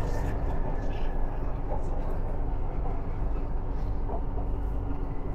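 BTS Skytrain dark green line train running, heard from inside the carriage: a steady low rumble of the wheels on the rails, with a faint steady hum over it.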